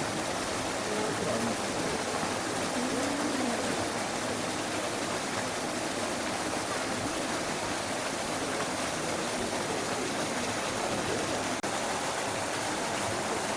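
Steady rushing noise of running water, with faint voices in the background during the first few seconds.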